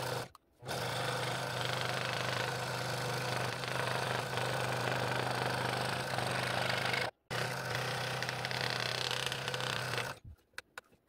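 Scroll saw running and cutting a ring out of a glued stack of bubinga and ash segments: a steady motor hum under the buzz of the reciprocating blade in the wood. The sound drops out for a moment about seven seconds in and stops about ten seconds in.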